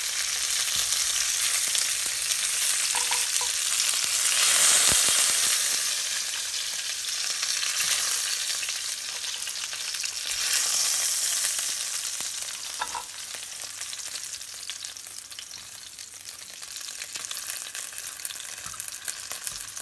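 Floured chicken pieces sizzling in a thin layer of hot oil in a skillet. The sizzle swells about four seconds in and again around ten seconds, then dies down, with a single sharp knock about five seconds in.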